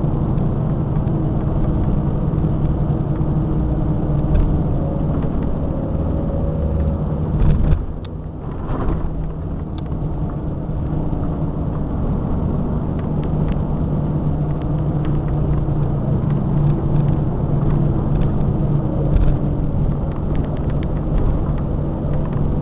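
Scania K94 IB bus's diesel engine running steadily under way, heard from inside the passenger cabin, with a low hum and scattered rattling clicks. About eight seconds in the engine note briefly drops, then picks up again.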